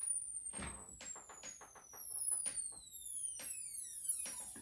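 Solid-state Tesla coil lighting a gas-filled glass globe: a high whine gliding steadily downward in pitch, with irregular sharp snaps and crackles of discharge.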